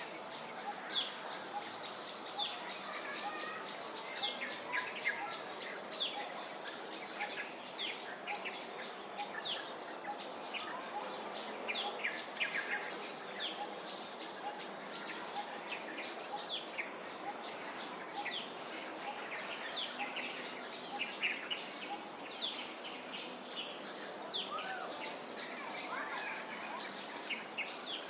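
Outdoor birdsong: many short, quick high chirps and calls from several birds throughout, over a steady faint high-pitched buzz and background hiss.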